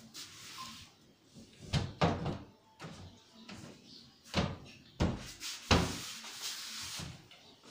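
Glass-paned deodar-wood kitchen cabinet doors being swung open and shut by hand, with several sharp wooden knocks as they close, the loudest about two seconds in and near six seconds.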